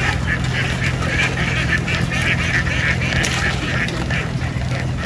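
A large flock of ducks quacking continuously, many calls overlapping, over a steady low hum.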